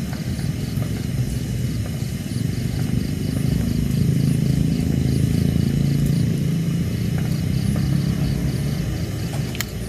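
Portable gas camping stove burner running steadily under a small pot of water, a low rumbling hiss that swells a little in the middle.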